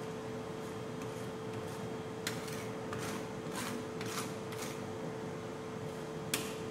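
Metal spatula and flat scraper scraping and tapping on the steel plate of a rolled ice cream machine while the ice cream base is spread thin. About six short strokes come from about two seconds in, the sharpest near the end, over a steady hum.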